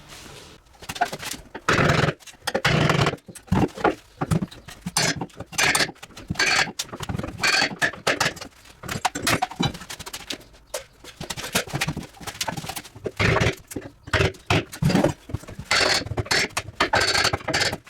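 Irregular knocks, clatter and scraping of hands-on dismantling work, with many sharp knocks in quick, uneven succession.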